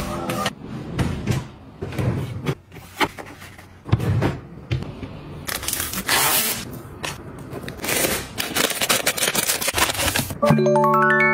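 Items being handled: irregular clicks, taps, scrapes and rustling. About ten and a half seconds in, a bright, steady musical tone starts.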